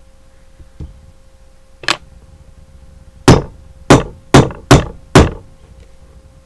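Small hammer striking down to set a copper rivet over a washer through a leather strap, peening the rivet head so it starts to round over. One blow about two seconds in, then five sharp blows in quick succession, roughly two a second.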